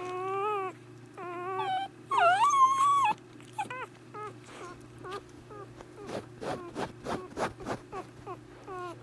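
Newborn miniature dachshund puppy crying: several drawn-out, high-pitched cries that waver in pitch, the loudest about two seconds in, then a quick run of short squeaks near the end.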